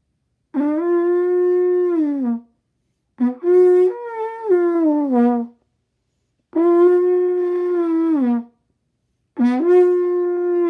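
Trumpet played in four long held notes, each bending down in pitch as it ends. The second note wavers and steps between pitches.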